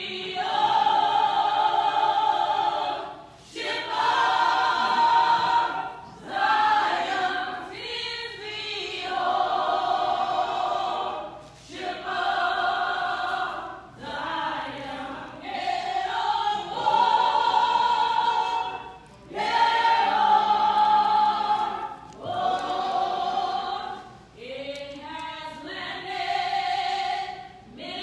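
Church choir singing, phrase after phrase, with short breaks between the phrases.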